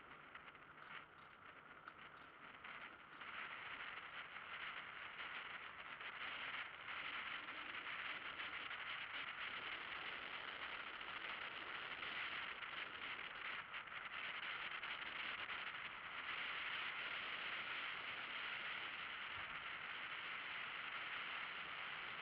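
Steady rushing ride noise of a velomobile rolling along the road, from its tyres and the air rushing past; it grows louder a few seconds in and then holds.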